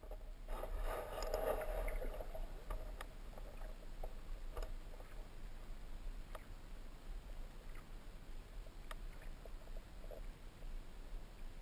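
Muffled underwater ambience picked up by a submerged camera: a steady low rumble with scattered faint clicks, and a swell of water-movement noise from about half a second to two seconds in.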